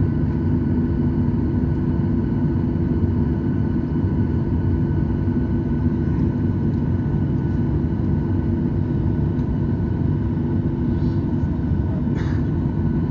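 Steady, loud vehicle engine drone with a low rumble and a faint steady whine above it, holding even without rising or falling.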